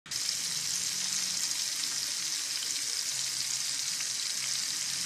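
Flour-and-cornstarch-coated salingyasi fish deep-frying in hot oil: a steady, loud sizzle.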